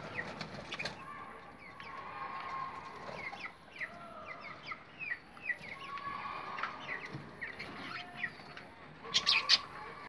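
Budgerigars chattering: a run of quick chirps and warbling calls. Near the end come a few loud clicks and rustles.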